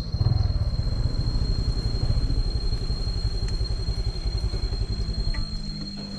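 Motor scooter engine running as it rides at low speed, a fast low pulsing that eases off about five seconds in to a steadier hum as the scooter pulls over and stops.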